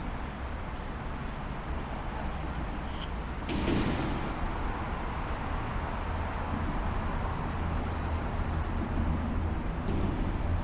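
City street traffic: a steady low rumble of passing vehicles, with a sudden hiss about three and a half seconds in.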